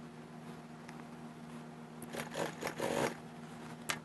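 Rustling and scraping of a mink vest's lining and fur being handled and smoothed on a sewing-machine table, in a few irregular bursts about two to three seconds in, with a short click near the end, over a steady low hum.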